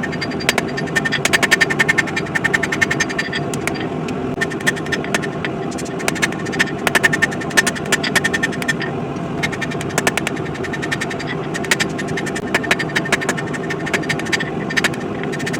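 Rapid, repeated hammer blows on steel, several strikes a second, with short pauses, over a steady mechanical running noise.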